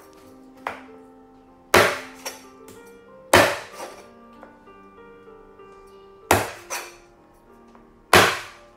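Meat cleaver chopping raw chicken on a cutting board: four heavy chops a second or two apart, some followed by a lighter knock.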